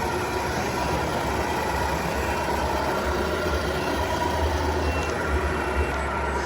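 RC model Tatra 815 6x6 truck running: a steady mechanical drone with a low hum and a faint constant whine.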